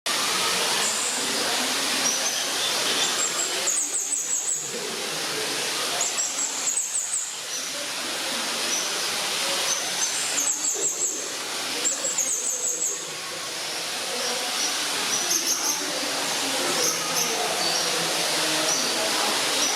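Small birds calling: short, very high-pitched chirping trills that come every few seconds over a steady hiss of background noise.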